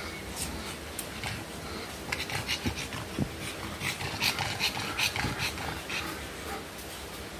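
Pug panting hard in labour, with some rustling of the blanket as she shifts on it.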